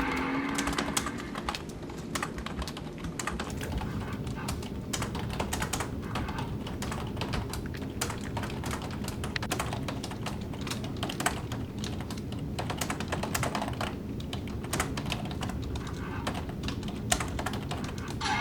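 Many fast, irregular light clicks, in the rhythm of typing, over a steady low background rumble.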